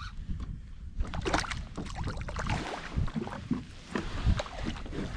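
Irregular knocks and bumps on a kayak, with faint water sounds, as a freshly hooked King George whiting is brought aboard.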